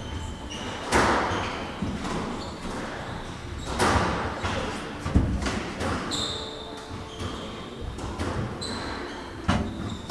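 A squash rally: the ball cracking off rackets and the court walls several times, with echo in the court, and sneakers squeaking on the wooden floor between shots.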